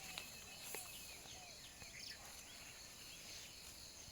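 Faint outdoor ambience: a steady chorus of insects with short bird chirps and a few light clicks.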